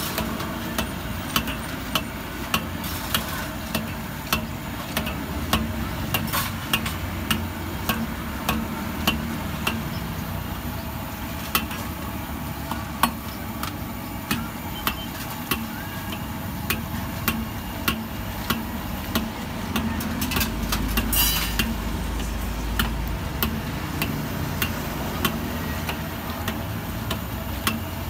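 Sweet potato balls frying in a wok of hot oil, with a steel ladle clicking and scraping against the wok, over a low steady rumble. A louder swell of the rumble comes about two-thirds of the way through.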